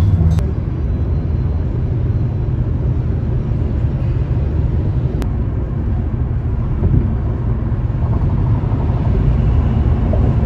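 Steady low rumble of road and engine noise heard from inside a car cabin while driving at highway speed.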